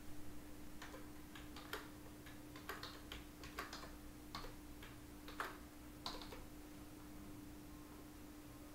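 Computer keyboard keys tapped one at a time: about a dozen separate, irregular clicks spread over some five seconds, as a short password is typed. A faint steady hum runs underneath.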